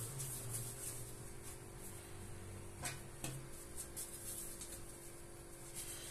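Faint hand-handling of soft bread dough on a stone countertop as a piece is torn off and rounded into a ball, with two light taps about three seconds in, over a steady low hum.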